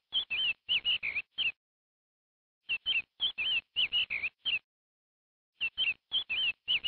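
Bird chirping. A quick phrase of about eight short, high chirps repeats three times exactly alike, with dead silence between the phrases: a looped bird-call sound effect.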